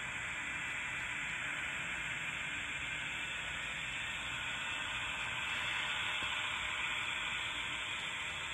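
HO-scale model train running along its track, a steady hiss-like whirring of motor and wheels on rail, slightly louder about six seconds in.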